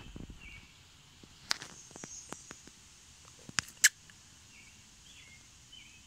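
Quiet woodland ambience: scattered sharp clicks and rustles, the loudest a pair a little before four seconds in, with a few faint bird chirps in the background.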